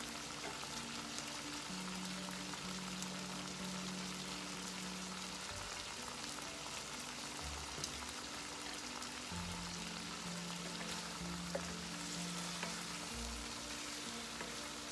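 Chicken pieces frying in oil and masala in a nonstick wok, a steady sizzle, with a wooden spoon stirring them near the end. Soft background music plays along.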